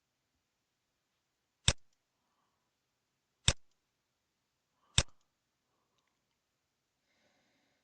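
Three single computer mouse clicks, sharp and separate, about a second and a half apart.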